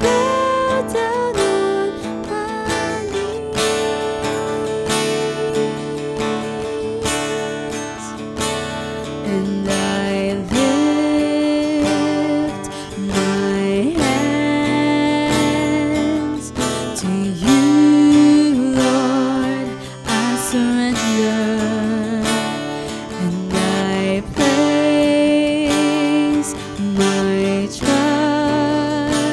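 A young woman singing a worship song, with a wavering vibrato on some held notes, accompanied by a strummed acoustic guitar.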